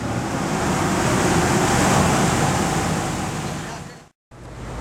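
A motor vehicle under way: a low, steady engine hum under a loud rush of wind noise. It swells in at the start and fades out shortly before the end.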